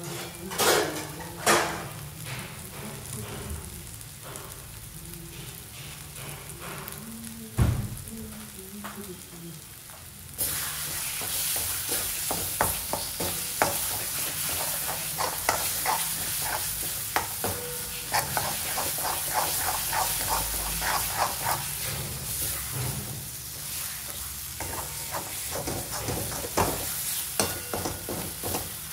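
Onion and tomato base sizzling in oil in a kadhai, with a spoon knocking and scraping against the pan as it is stirred. The sizzle gets louder about ten seconds in.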